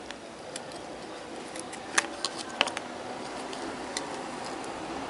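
Small, sharp plastic-and-metal clicks and taps from fingers handling a small pinned component on its flat ribbon cable, with two louder clicks about two seconds in and a moment later. Behind them runs a steady background hiss that grows slightly louder.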